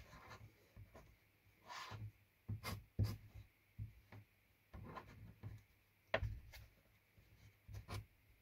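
Soft scratching and rubbing of a felt-tip marker colouring fly-tying wing material, among scattered small taps and clicks of handling on the bench.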